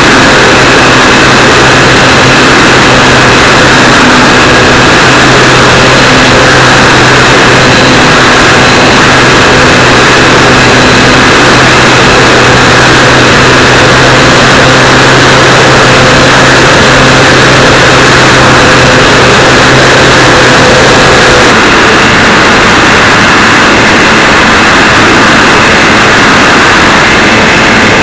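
Electric motor and propeller of a Multiplex Easy Glider RC model plane running steadily in flight, heard through a camera mounted on the plane, loud and distorted with rushing air. About three-quarters of the way through, the deepest part of the drone drops out and the tone shifts.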